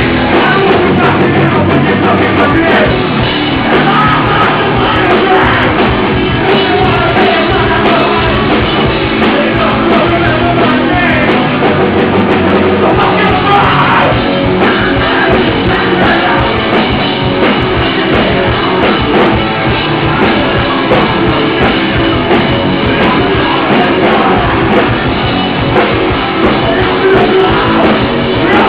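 Hardcore punk band playing live and loud: distorted electric guitars, fast drums and shouted vocals.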